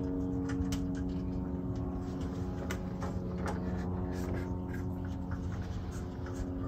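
Steady machine hum in the background, with faint light clicks and taps of small plastic and metal parts being handled as a flange nut is fitted onto a grill igniter button.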